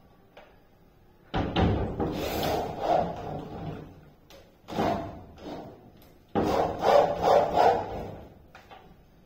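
Hand-held power tool working the wood of a door frame. It runs in two spells of two to three seconds each, with a short burst between them, and each spell starts suddenly.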